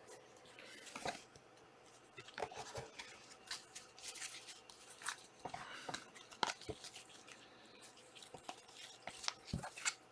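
Trading card packs and cards being handled: irregular small clicks, taps and crinkly rustles of wrappers and card stock.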